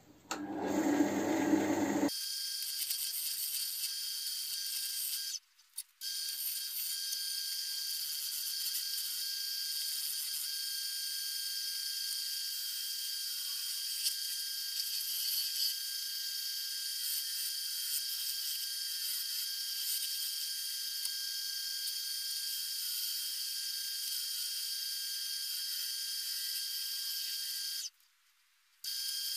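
Wood lathe spinning a vase blank while a turning tool cuts along it: a steady hiss with a thin high whine. It opens with about two seconds of louder, deeper noise and cuts out briefly twice.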